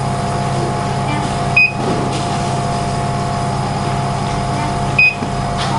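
Steady hum of a laser engraving machine's fans and pumps running, with two short high beeps, one about a second and a half in and one near the end.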